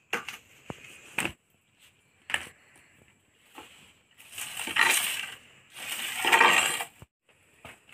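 Three sharp knocks of a machete on bamboo, then two longer crunching rustles, the loudest part, of dry twigs and bamboo splinters being handled.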